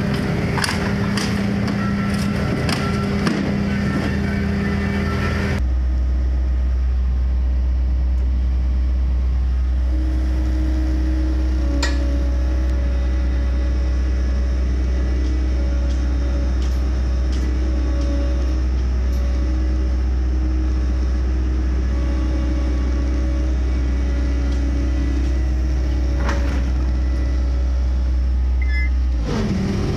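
A machine running: a noisy clatter with clicks for the first few seconds, then a steady deep hum with fainter tones above it, which cuts off abruptly near the end.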